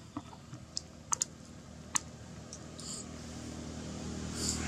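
A few scattered sharp clicks and taps, then a motor vehicle approaching, its engine hum growing louder over the last second or two.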